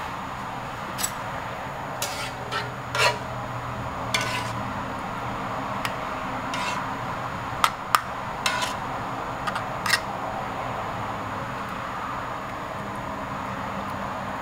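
A spoon clinking and scraping against the pan and plate as thick chilli-egg sauce is spooned over a cooked mud crab: about a dozen irregular clinks, the sharpest around three seconds in and near eight seconds, over a steady background hum.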